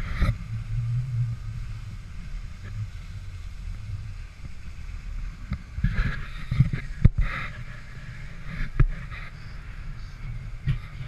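Wind buffeting a GoPro's microphone: a steady low rumble, with a couple of sharp knocks from the camera pole being handled.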